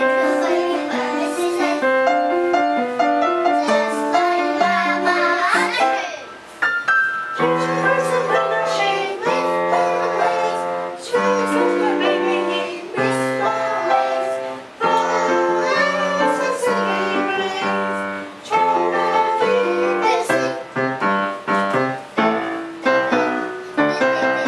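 Music: a piano-led tune with a steady run of notes.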